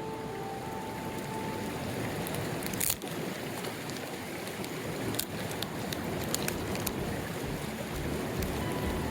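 Mountain stream rushing over rocks, a steady wash of water noise, with a few sharp clicks.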